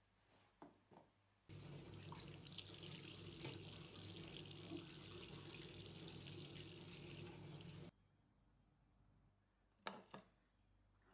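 Water running steadily from a tap into a sink, turned on about a second and a half in and shut off after about six seconds, followed by a couple of light knocks.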